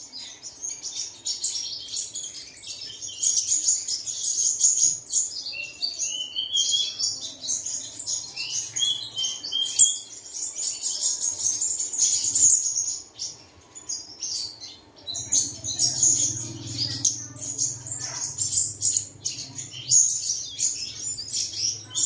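Sunbird singing a quick, continuous run of high-pitched chirps and short twittering slides. A low steady hum joins about two-thirds of the way through.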